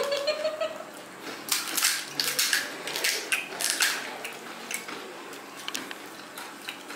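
Crisp fried fuchka (panipuri) shells crackling and crunching as they are cracked open by hand and eaten, a dense run of crackles about a second and a half in, then scattered ones.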